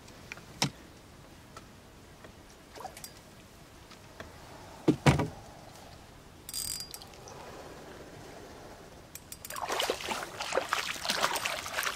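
A fishing reel is cranked while a hooked catfish is fought, with scattered clicks and a pair of loud knocks about halfway through. From about three-quarters of the way in, the catfish thrashes and splashes at the surface, and this splashing is the loudest part.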